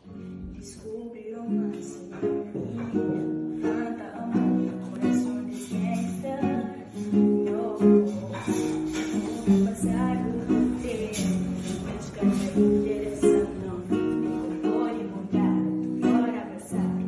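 Acoustic guitar (violão) playing an instrumental introduction, with chords sounded in a steady rhythm.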